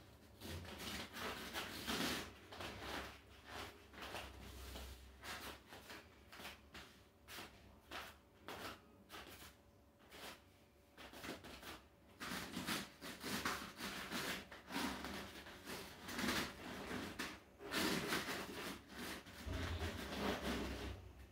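Irregular rubbing, shuffling and soft bumps from a barefoot person stepping and shifting weight on a rubber floor mat and an inflatable balance disc.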